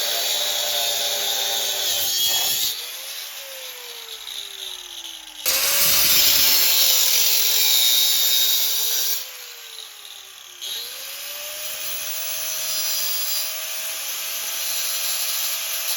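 A power tool cutting exhaust pipe in several passes. The motor's tone sags in pitch as it bites and winds down between passes, over the hiss of the cut.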